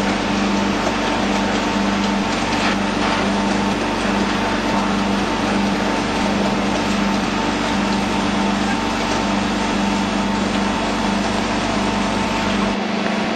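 Shotcrete machine with a built-in concrete pump running: a loud, steady mechanical drone with a low hum that pulses about twice a second.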